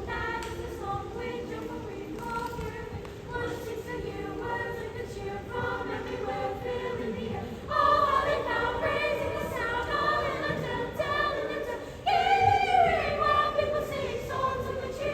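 A high school choir singing a cappella, several voices on held notes, swelling louder about eight seconds in and again near the end.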